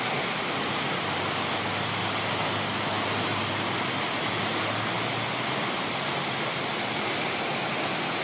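Floodwater rushing in a steady torrent, an even roar with no breaks.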